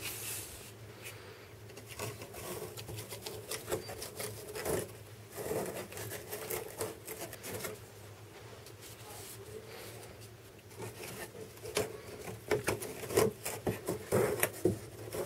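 Notched corrugated cardboard strips being slid into each other's slots: irregular scraping, rubbing and light taps of cardboard on cardboard, with busier clusters about five seconds in and near the end.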